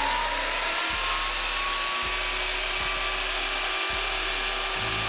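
A Stanley table saw running at speed, its motor whine rising in pitch over the first couple of seconds and then holding steady.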